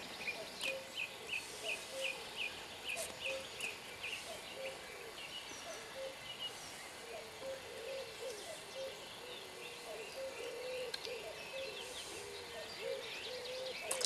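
Birds calling by a lake. One bird repeats a short high chirp about three times a second for the first four seconds, over lower repeated calls that run throughout.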